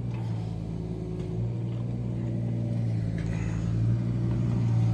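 An engine running steadily with a low, even hum, growing slightly louder near the end.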